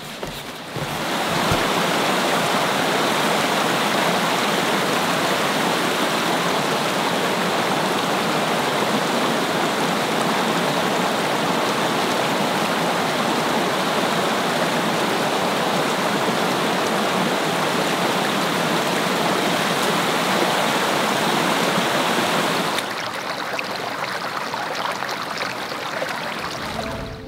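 Running water rushing steadily. About 23 s in it drops to a quieter, thinner hiss.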